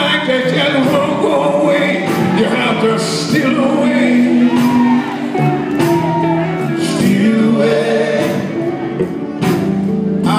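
Live gospel quartet music: a man singing lead over the band, with steady drum hits.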